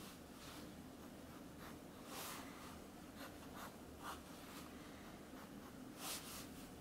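Pen drawing lines on sketchbook paper: faint, short scratching strokes with brief pauses between them.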